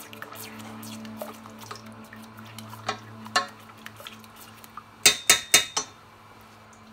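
Spoon stirring thick sauce in a stainless steel saucepan, with light clicks and knocks against the pan. About five seconds in come four sharp clinks in quick succession. Faint background music runs under the first half.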